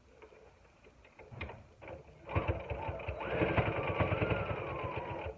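Electric sewing machine stitching: it starts about two seconds in and runs steadily, the needle clattering rapidly over a motor whine that rises and then slowly falls, stopping near the end. Light handling clicks before it starts.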